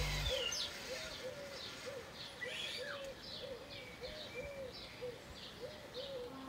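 Birds calling in a garden: short low arched notes repeated about three times a second, with higher short chirps over them. Background music cuts off just after the start.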